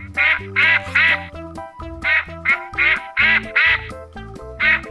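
Duck quacking in quick runs of three or four calls, over children's background music.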